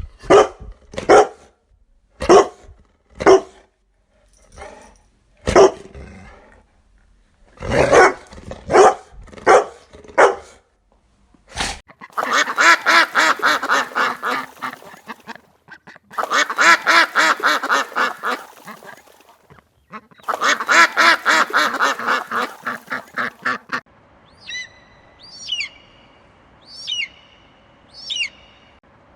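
A run of animal calls: sharp short calls repeated over about ten seconds, then three long calls made of rapid pulses, then high chirping calls that sweep down in pitch.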